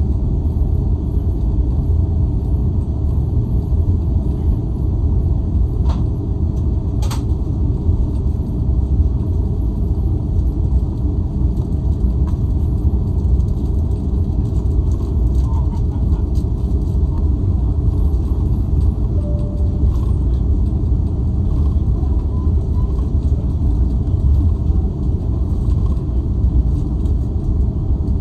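Steady low rumble in the cabin of an Airbus A330 taxiing on the ground, with two short clicks about six and seven seconds in.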